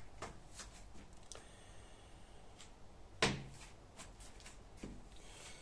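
A few soft clicks and one louder knock about three seconds in, with a smaller knock near the end.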